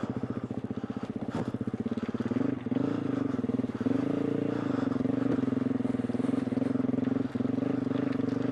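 KTM 350 EXC-F dirt bike's single-cylinder four-stroke engine pulling at low, fairly steady revs. Its individual firing pulses chug audibly for the first couple of seconds before the note smooths out.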